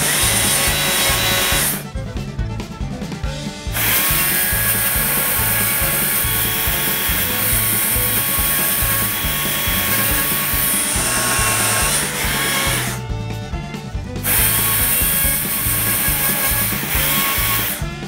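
A Stihl chainsaw cuts into cherry wood while carving. It stops twice for about two seconds each, about two seconds in and again about thirteen seconds in. Background music with a steady beat plays underneath.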